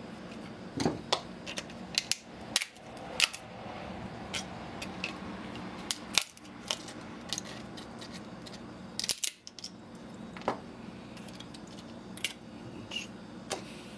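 Irregular sharp clicks and clinks of small metal and plastic electronic parts being cut, pried off and dropped while a camcorder is taken apart for scrap, over a steady low hum.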